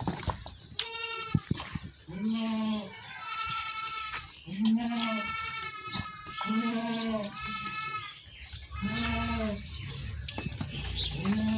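Goats bleating again and again, about eight calls under a second each, some low and some high-pitched.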